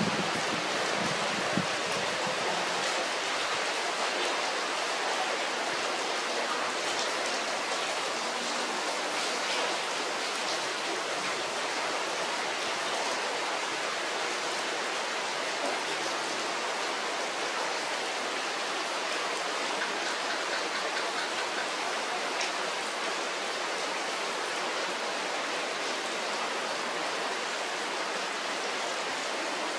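Heavy rain pouring onto foliage, a dense, steady hiss.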